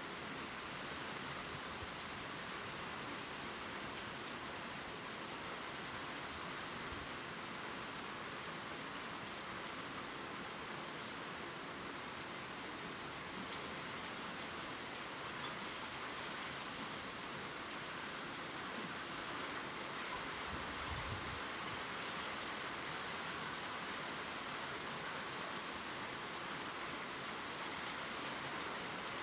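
Steady gentle rain falling on leaves, a soft even hiss with faint scattered drop ticks; a brief low thump about two-thirds of the way in.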